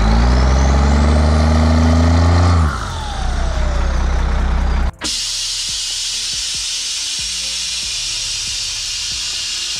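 Fire truck's engine revved at the exhaust tip, pitch climbing for about two and a half seconds with a rising whistle, then dropping off as the whistle falls. About five seconds in it cuts abruptly to a steady hiss.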